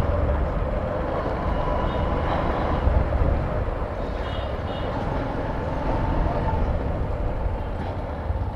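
Riding noise from a Bajaj Platina 125 motorcycle in city traffic: a steady rumble of engine, road and wind, with two brief faint high beeps about two and four and a half seconds in.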